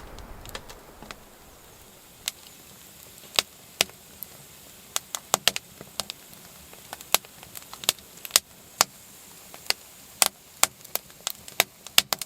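Wood stove in a hot tent crackling: sharp, irregular pops and ticks, roughly one or two a second, some much louder than others, over a faint steady background.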